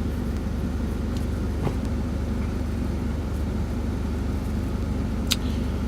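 Semi-truck diesel engine idling steadily, a low even rumble, with a couple of faint clicks.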